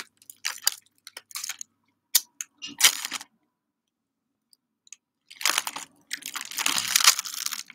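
Crunching bites and chewing of a flaky apple turnover: a few short, crisp crunches in the first three seconds, then a pause, then a longer, louder stretch of crackly crunching and rustling from about five and a half seconds in.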